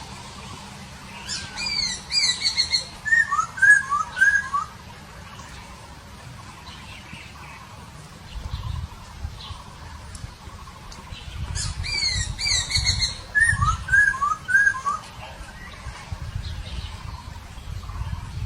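Masked laughingthrush (Hong Kong poksay) calling twice, about ten seconds apart. Each phrase is a quick run of high, downward-sliding notes followed by three lower, up-and-down whistled notes.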